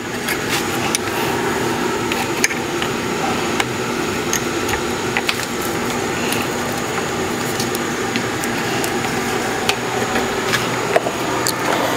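A steady machine hum with scattered light clicks and knocks from hands working wiring and plastic parts at the front of a motorcycle.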